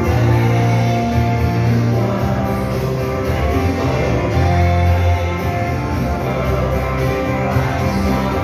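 Dance song playing loudly, with a steady bass line.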